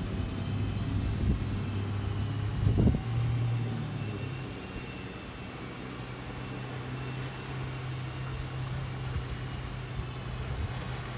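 Motorboat engine running with a steady drone. Its pitch steps up slightly about three seconds in, and a faint high whine rides above it.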